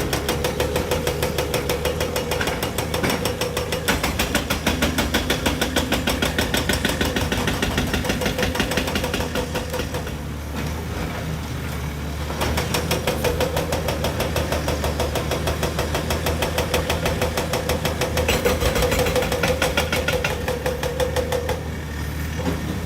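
Hydraulic excavator's diesel engine working under load, a dense rapid clatter with a steady whine over it; it eases off briefly about ten seconds in and again near the end, then picks back up.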